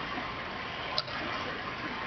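Steady background hiss of room and microphone noise, with one short sharp click about a second in.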